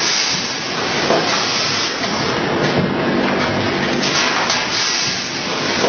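Automatic rotary powder pouch-packing machine running: a steady mechanical clatter from the turning turntable and bag grippers, with short hisses of air from its pneumatics now and then.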